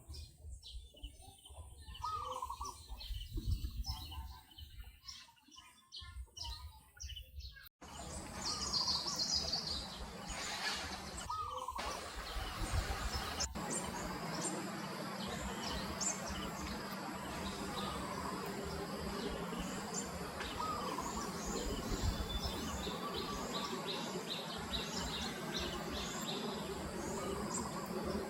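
Birds chirping outdoors. One short call repeats every two to three seconds, with higher twittering above it, over a steady background hiss that gets louder about eight seconds in.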